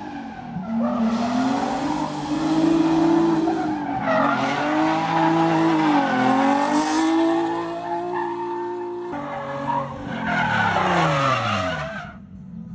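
Nissan 370Z drift car drifting: the engine revs high, its pitch rising and dipping, over loud tyre squeal and skidding from the spinning rear tyres. The pitch falls away as the sound drops off near the end.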